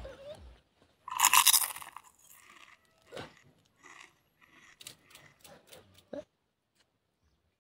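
A person biting and chewing fresh raw leaves with the mouth close to the microphone: one loud crunchy rasp about a second in, then wet clicks and lip smacks of chewing that stop about six seconds in.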